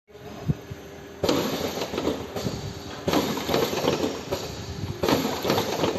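Automatic cartoning machine running, with a burst of clattering and clicking that starts sharply about every two seconds as it cycles.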